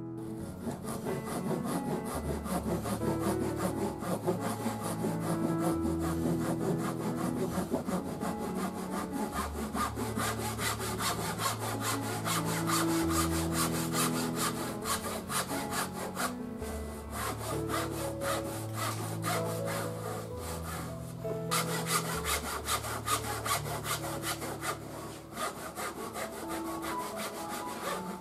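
Japanese backsaw sawing a thin wooden shoji strip with quick, even strokes, pausing briefly twice in the second half. Soft piano music plays underneath.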